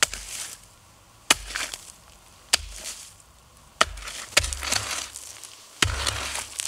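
Homemade wooden hoe chopping into frost-covered forest soil: five sharp blows at about one every second and a quarter, each followed by the scrape and crumble of earth dragged back by the blade.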